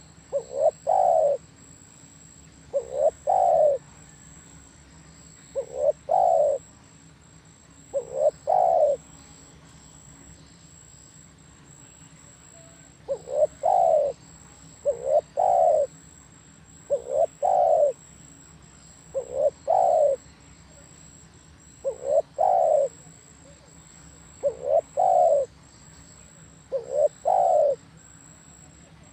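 Spotted dove cooing: eleven repeated phrases, each a short note or two leading into a longer coo, about every two to three seconds, with a pause of about four seconds after the fourth phrase.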